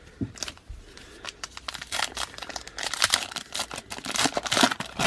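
Panini Prizm trading card pack wrapper crinkling and tearing as it is opened: a run of irregular crackles that grows denser about two seconds in.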